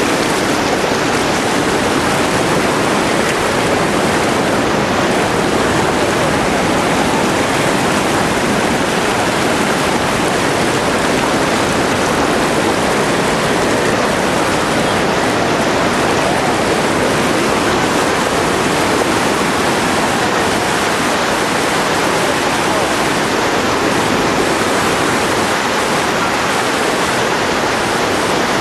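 Shallow, fast-flowing muddy river water rushing steadily over a flooded crossing, a loud, even rush of moving water.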